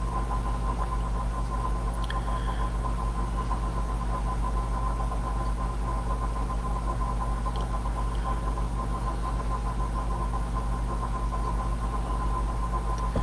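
Steady low electrical or mechanical hum with a thin steady whine above it: unchanging room background noise.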